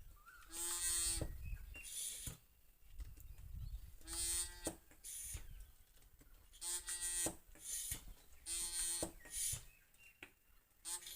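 A small electric power tool's motor run in short bursts, about five spins of under a second each at a steady buzzing pitch, with shorter whirring blips between them.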